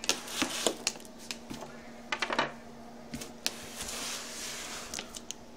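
Cardboard box being handled and turned over: scattered light taps and knocks, with a short stretch of rubbing and rustling a little over two seconds in.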